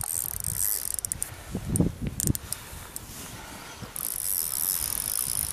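Spinning reel working on a hooked fish: its mechanism whirs and clicks briefly at the start and again from about four seconds in, with scattered clicks between.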